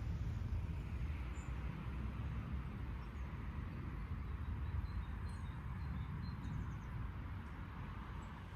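Low rumble of road traffic, which dies away near the end, with a few faint bird chirps above it.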